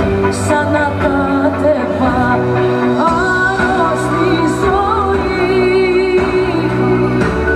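Greek pop song with a woman singing long, wavering notes with vibrato over a steady band backing.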